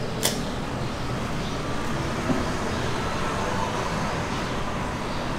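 Steady rumble of city street traffic, with a sharp click about a third of a second in and a softer knock a couple of seconds later.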